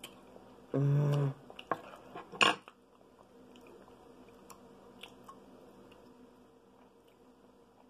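Utensil clinking against a glass bowl: a few sharp clinks, the loudest about two and a half seconds in, then only faint small clicks. Just before the clinks, about a second in, comes a short low steady hum.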